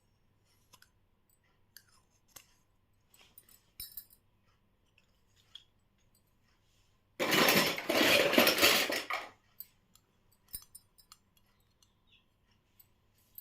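Small plastic toy kitchen pieces handled, with scattered light clicks and clinks. About seven seconds in comes a loud rustle of plastic packaging lasting about two seconds.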